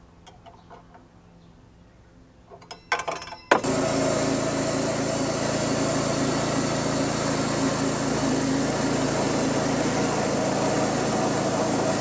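Homemade band sawmill's 6.5 horsepower gas engine ticking over quietly, then a few clicks. About three and a half seconds in it jumps at once to full speed, and the band blade cuts steadily through a log.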